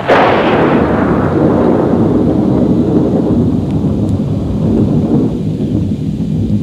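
A sharp thunderclap right at the start, followed by a long rolling rumble of thunder that slowly dies away over a few seconds, with rain.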